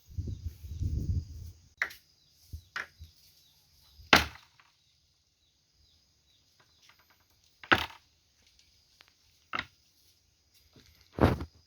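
Six sharp knocks or cracks at irregular intervals, the loudest about four seconds in, over a steady high insect buzz; a low rumble in the first second.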